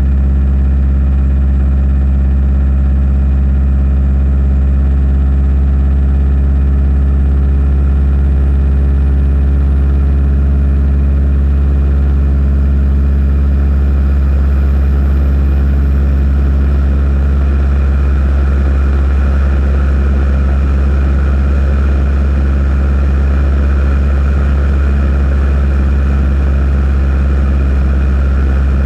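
An engine running at one steady, unchanging speed, a loud even hum with most of its weight at the low end.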